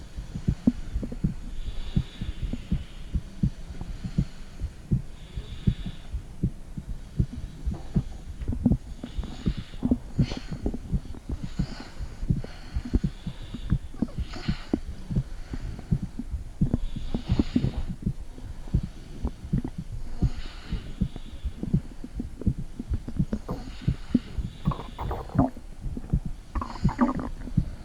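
Heartbeat picked up by a phone microphone pressed against the body: a steady run of low thumps, with a couple of brief gurgles near the end.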